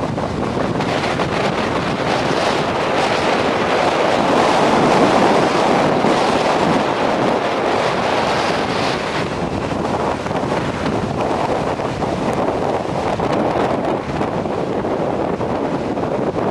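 Rough storm surf breaking and rushing, with strong wind buffeting the microphone; a continuous loud roar that swells about four seconds in and again around eight seconds.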